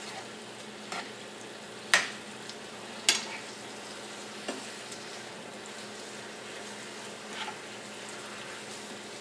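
Marinated chicken pieces sizzling steadily in oil in a nonstick frying pan over low heat. A few sharp clicks of a utensil against the pan as the pieces are stirred and turned, the loudest about two and three seconds in.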